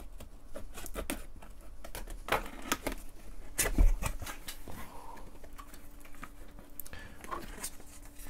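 Cardboard retail box being unboxed by hand: a seal slit, the lid lifted and paper and cardboard inserts rustling, with scattered clicks and a thump about four seconds in.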